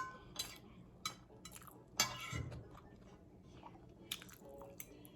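Light clicks and clinks of tableware as food is handled. The first, right at the start, rings briefly; a louder one comes about two seconds in, and the rest are scattered between quiet stretches.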